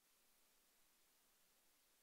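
Near silence: the audio has dropped out, leaving only a faint, even hiss.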